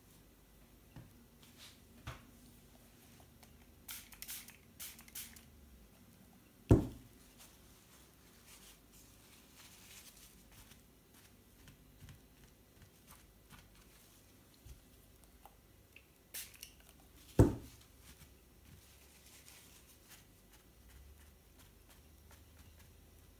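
Quiet tabletop handling while painting: scattered light clicks and rustles, a few short high hisses, and two sharp knocks about ten seconds apart.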